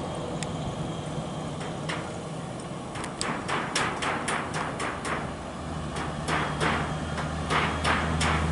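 Scania R580 V8 truck engine running low and steady as the rig approaches, its rumble growing stronger about two-thirds of the way in. From about three seconds in, a rapid series of sharp knocks, about four a second, grows louder over it.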